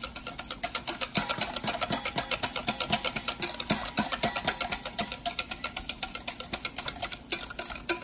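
A utensil stirring condensed and evaporated milk in a small mixing bowl, clicking fast and evenly against the bowl, several strokes a second.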